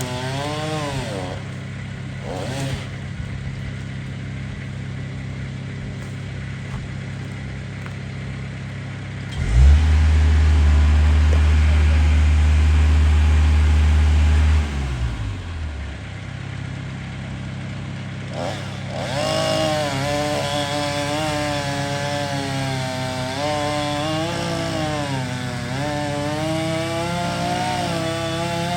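Chainsaw running and cutting, its pitch rising and falling with load, over the steady low hum of an engine. In the middle a loud low drone sets in for about five seconds and then cuts off.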